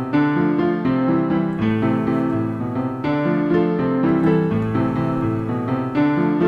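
Piano music: a steady stream of notes and chords.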